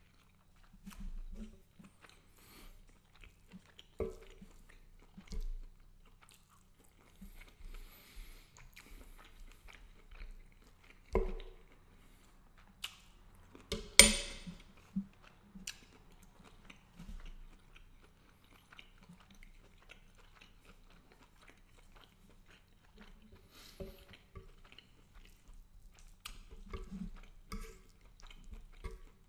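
Close-up chewing of garlic butter shrimp and angel hair pasta, with small mouth sounds throughout. A few sharp knocks break in, the loudest about halfway through.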